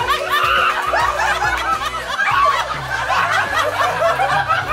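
A group of people laughing and chattering over background music.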